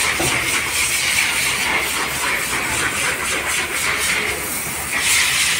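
Pressure-washer wand blasting a flat fan of water onto a concrete floor: a steady, loud hiss of spray with a low hum underneath. The hiss gets louder and brighter about five seconds in.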